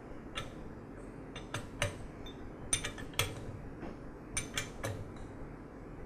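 A metal wrench clinking on the hex back cap of an air compressor's pressure regulator as the cap, spring and piston assembly is tightened back into the regulator body: about ten sharp metallic clicks in irregular clusters.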